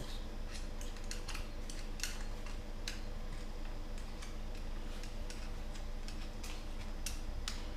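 Irregular light metallic clicks and taps of hand tools working inside an open rear differential, fishing for the axle C-clips, over a steady low hum.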